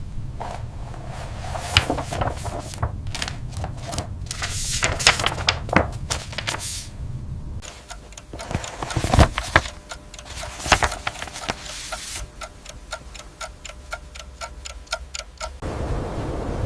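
A run of irregular sharp clicks and knocks. Toward the end comes a quick, even ticking, about five ticks a second, that stops suddenly after a few seconds.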